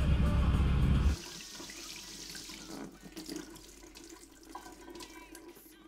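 The paddock-basher car's engine rumbling, heard from inside the cab, cuts off abruptly about a second in. Then a kitchen tap runs water into a sink for a couple of seconds, followed by a few faint clicks and knocks.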